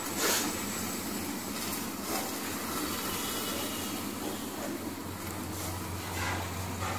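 Batter paratha cooking under a glass lid in a frying pan over a gas flame: a steady soft hiss and sizzle, with a low steady hum underneath.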